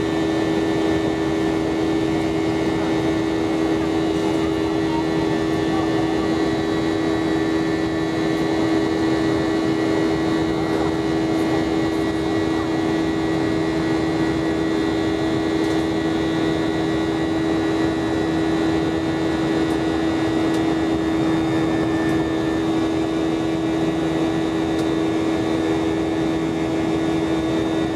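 Airbus A319 cabin noise beside the wing during the climb after takeoff: the jet engines' steady drone, with a strong low hum and several fainter steady higher tones over a rush of air.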